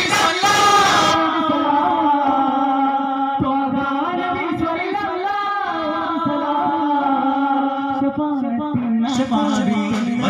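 Men singing a duff muttu song through a sound system, with a steady low drone under the voices and a few daf frame-drum strokes.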